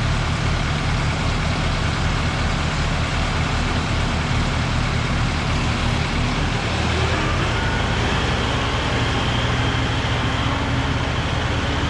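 Kubota M6060 tractor's four-cylinder diesel engine running, picking up speed about six or seven seconds in and holding the higher speed.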